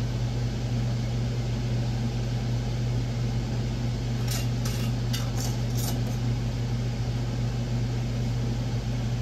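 Steady machine hum, with a few light clinks of glass canning jars about four to six seconds in as their rims are wiped with a rag.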